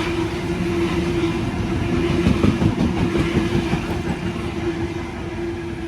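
A train passing at speed: wheels rattling over the rail joints under a steady hum. It is loudest two to three seconds in and then fades as the train moves away.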